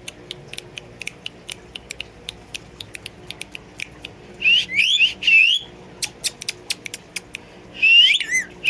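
Parrot giving short whistled calls that slide up and down in pitch, in two clusters, one around halfway and one near the end, with a run of rapid sharp clicks before and between them.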